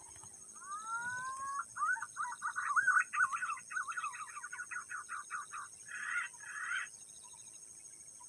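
A bird calling: two rising whistles, then a quick run of wavering, warbling notes, ending with two short harsher notes.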